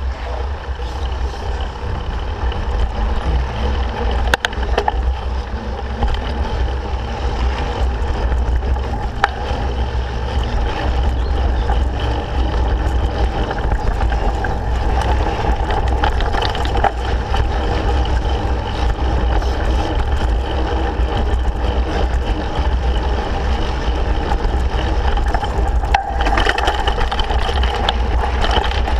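Mountain bike riding down a dirt forest trail, heard through an action camera's microphone: steady wind rumble and tyre noise on the dirt, with scattered sharp knocks and rattles as the bike goes over bumps.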